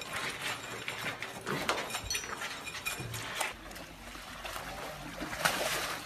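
A pig eating noisily from a bowl, a quick run of crunching, clicking mouthfuls for about three and a half seconds, then a quieter wet, noisy stretch from an elephant shifting in mud, with a louder rush near the end.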